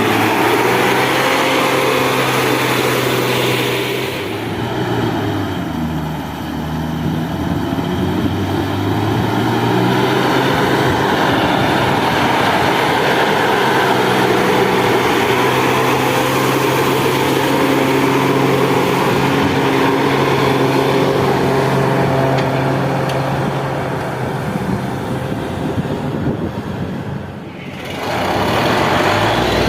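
Borewell drilling rig running under load, a steady diesel engine note that sags twice and picks back up.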